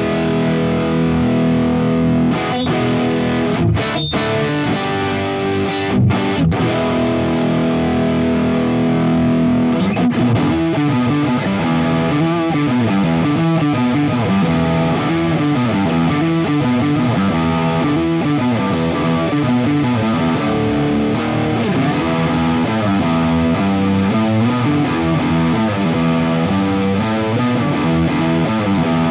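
Distorted electric guitar: a Washburn N24 played on its DiMarzio DP156 Humbucker From Hell neck pickup, wired in series, through a Fractal Audio AX8 running a high-gain Friedman HBE amp preset. It rings out held chords with a few short stops, then from about ten seconds in plays fast single-note riffs.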